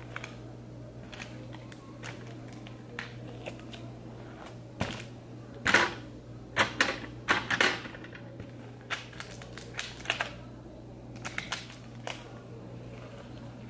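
Irregular small clicks and taps from fingers picking scattered slime sprinkles off a work surface, a cluster of louder ones around the middle, over a faint steady hum.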